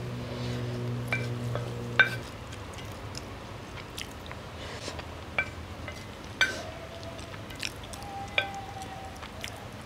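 Cutlery clinking and scraping against a plate with a short ring after several strikes, alongside chewing, as spaghetti is eaten. A low steady hum cuts off about two seconds in.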